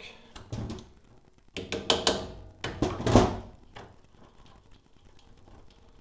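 Hand tools and a plastic container being handled at a boiler's circulation pump: a few light clicks, then two short clatters and knocks, with quiet between.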